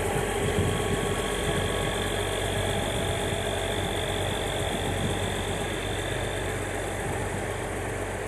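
Diesel engine of a yellow rail track maintenance machine running steadily as the machine moves slowly along the track, its hum easing slightly as it pulls away.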